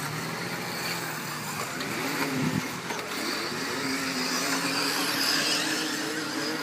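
Electric 1/8-scale off-road RC buggies racing, their motors whining up and down in pitch as they accelerate and brake, settling into a steadier whine in the second half.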